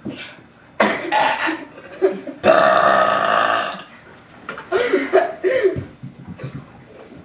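Loud belching from carbonated seltzer: several belches in a row, the longest and loudest held for over a second about two and a half seconds in.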